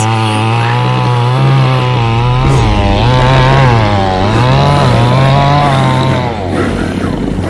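Stihl two-stroke chainsaw running at high speed. Its pitch dips and recovers twice, then the engine note falls away near the end.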